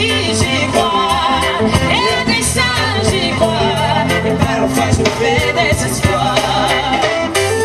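Live band music with a woman singing lead into a microphone, her voice wavering and gliding through drawn-out notes over a steady beat.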